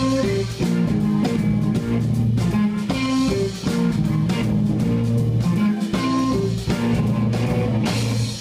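A live blues-funk fusion band playing: electric guitar over electric bass and drum kit, with keyboard.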